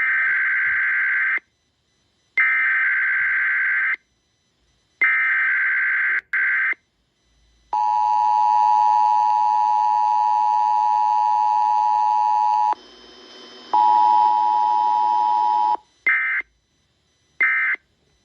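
Emergency Alert System broadcast tones. Three screeching digital header bursts are followed by the steady two-tone attention signal, which breaks once briefly. Three short end-of-message bursts close it out. This is a station relaying the weekly EAS test.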